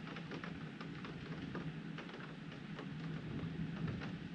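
Rain pattering on window glass: a steady hiss with many separate drop ticks.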